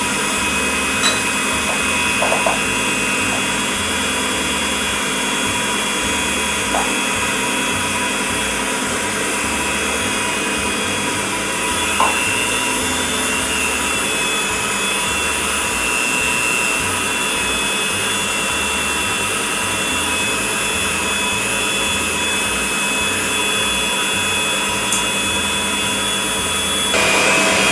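Electric stand mixer running steadily, beating cake batter, its motor whine shifting slightly in pitch a few times and getting louder just before the end. A few light taps sound over it.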